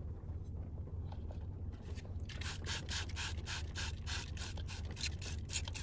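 Hand-held trigger spray bottle misting water onto broccoli in a bowl to wash it. The sprays start about two seconds in and repeat rapidly, about three a second.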